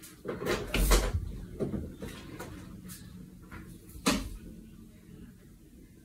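A few scattered knocks and thumps in a small room: the loudest about a second in and another about four seconds in, then fading to a faint low hum.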